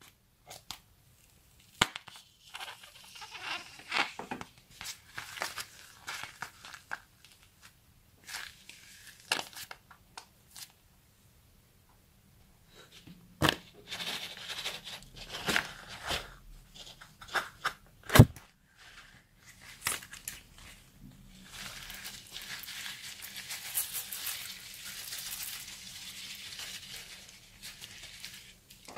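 Close-up handling of rubber gloves filled with slime: scissors snipping into a glove, with squelching, tearing and crinkling of glove and slime, and several sharp clicks. A near-silent pause comes about a third of the way in, and a steadier rustling runs through the last third.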